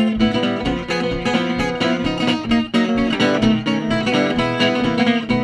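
Solo fingerpicked ragtime-blues on a roughly 100-year-old acoustic guitar. The thumb plays a piano-style bass line while the fingers pick the melody above it.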